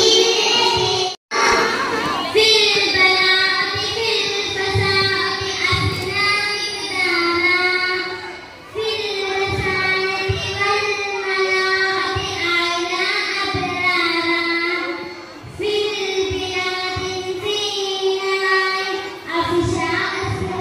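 A child singing a song, holding long notes in phrases. The sound cuts out for an instant about a second in.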